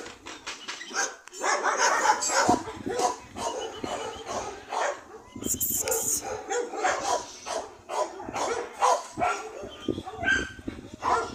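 Dogs barking repeatedly and irregularly.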